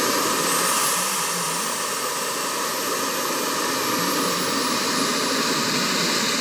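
Small RC model jet turbine running steadily: a smooth, even rush of exhaust with a thin high whine over it.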